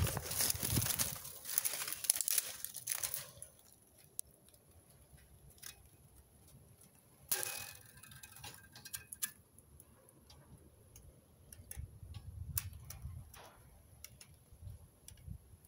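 Rustling and crunching for the first three seconds, then quiet with scattered light clicks and taps, and one louder crackle about halfway through: footsteps and handling noise from someone walking into an empty building while filming on a phone.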